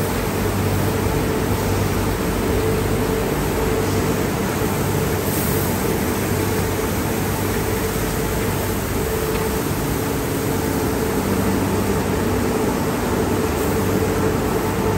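Automatic car wash tunnel machinery running: spinning cloth brushes scrubbing along a car and water spraying, over a steady machine hum. The sound stays even throughout, with no sudden knocks.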